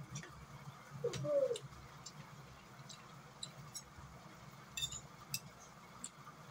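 Light clicks of spoons against plates during a meal, with one short cooing call that rises and falls about a second in.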